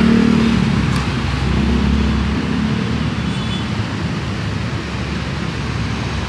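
Busy road traffic: motorcycles and cars running past, with a low engine hum that is strongest in the first two to three seconds and then eases off.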